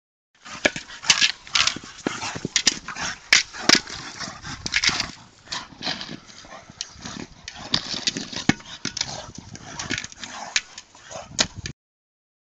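Two Staffordshire bull terriers playing rough over a toy ball: dog noises mixed with many sharp knocks and scuffling. The sound drops out for under a second near the end.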